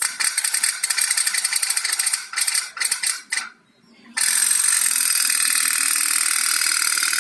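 Pop-pop steam boat's heated Pepsi-can boiler chattering with a rapid, high-pitched rattle: steam pulses drive water out of its tubes and push the boat along. The chatter drops out for about a second midway, then comes back steady.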